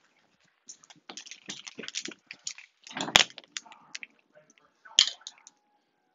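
Plastic Gatorade bottle being handled and its screw cap twisted off: a run of crinkly plastic clicks and crackles, with a sharp crack about three seconds in and another sharp click about five seconds in.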